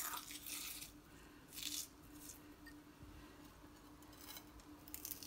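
Crispy fried onions crunching and crackling as fingers crumble them into a small glass bowl, in a few short faint bursts: at the start, about a second and a half in, and again near the end. A faint steady hum runs underneath.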